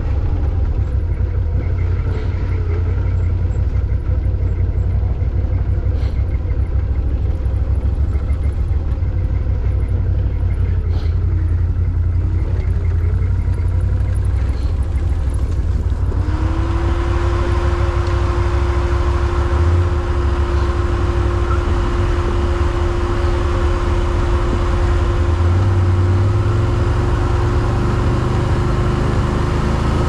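ATV (quad bike) engine running while riding, with a heavy low rumble. About halfway through the sound turns brighter and a steady engine note sets in and holds.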